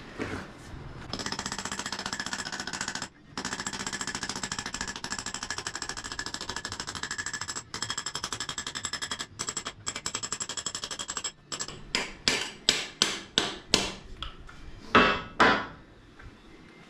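Impact wrench hammering steadily for about ten seconds with a few short breaks, then about eight short bursts and a final burst near the end, working the motorcycle's 1-1/8 inch rear axle nut.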